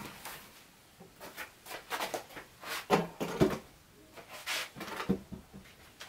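A low wooden bench being carried in and set down on a cement floor: a string of wooden knocks and scrapes, the loudest a pair of thuds about three seconds in and another knock near five seconds, with shuffling footsteps in between.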